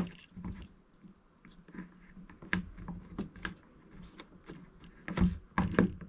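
Scattered light clicks and taps of hard plastic being handled, with two louder knocks near the end: a plastic wiring connector plate being fitted over a drilled hole in a plastic kayak deck.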